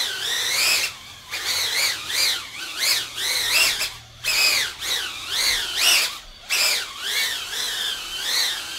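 LDARC flying soccer ball FPV drone hovering and manoeuvring: the quadcopter's motors and caged propellers give a high whine that keeps rising and falling in pitch as the throttle is worked.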